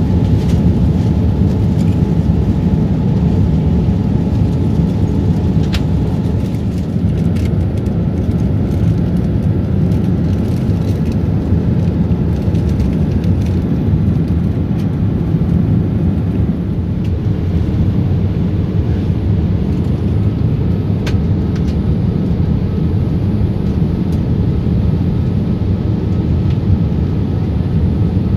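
Steady low rumble of jet engines and airflow heard inside the cabin of a Boeing 787-8 airliner, with a faint steady hum on top.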